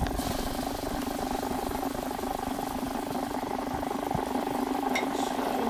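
A steady mechanical hum with a whirring texture, running evenly throughout.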